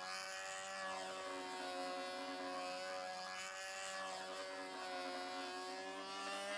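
Control-line stunt model airplane's engine running in flight: a steady drone whose pitch wavers slightly.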